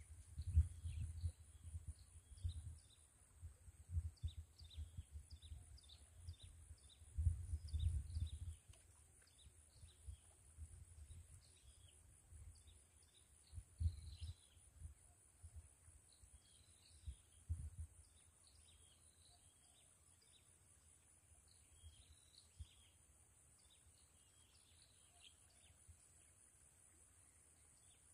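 Wind gusting on the microphone in low rumbles, strongest in the first half and dying away about two-thirds of the way in. Small birds chirp throughout over a steady, high, pulsing insect buzz.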